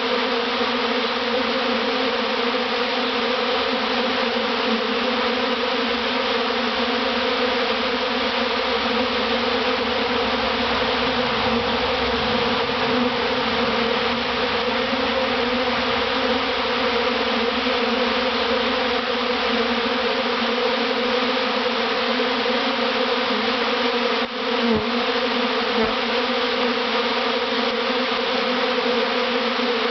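A large swarm of honey bees flying thickly around the microphone: a dense, steady buzzing roar of many wingbeats, from bees in swarm mode moving into a new hive. One brief knock about three-quarters of the way through.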